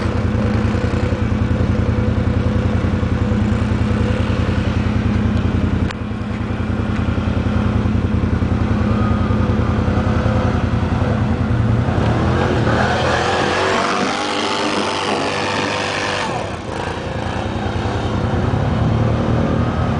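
Quad (ATV) engine running as it is ridden through snow close by. A little past the middle it revs up and down for a few seconds.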